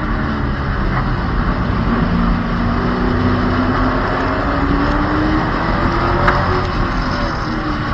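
Stock car race engines running at speed in a pack, heard from the car's roof, with the engine pitch climbing as the cars accelerate out of the turns, over a steady rush of noise. A single sharp click sounds about six seconds in.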